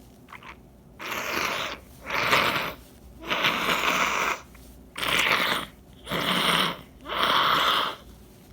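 A person blowing a runny, congested nose: six forceful blows about a second apart.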